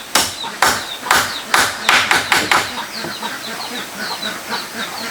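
Repeated sharp blows on wood, about two a second, stopping about two and a half seconds in. Chickens cheep with short high peeps throughout.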